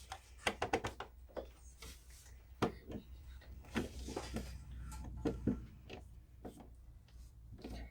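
Scattered clicks and knocks of hand-handling work on an old electrical receptacle and its wall box: a quick run of several small clicks just under a second in, then single knocks every second or so.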